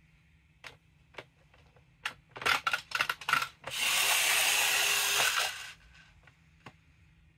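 Child's magnetic drawing board being handled: light plastic taps, then a run of loud clicks and knocks, then about two seconds of steady scraping as the board is wiped clear.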